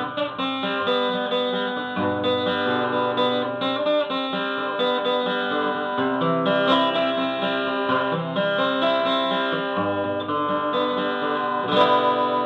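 Instrumental break of a song, led by plucked and strummed guitar over a bass line that changes chord about every two seconds, with no singing.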